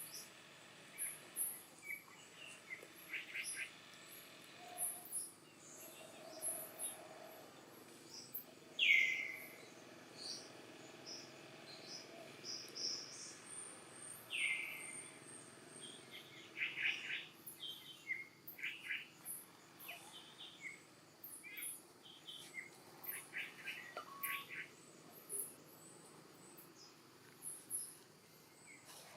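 Outdoor animal calls: many short, high chirps and twitters throughout, with two louder calls that fall in pitch about nine and fourteen seconds in, over a faint steady background of insects.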